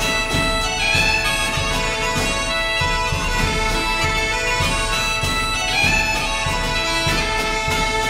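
Background music: a reedy melody over several steady held drone notes, with a regular low beat beneath.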